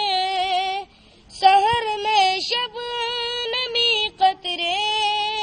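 A boy singing a naat unaccompanied in a high voice, holding long notes that waver in pitch, with a short breath pause about a second in.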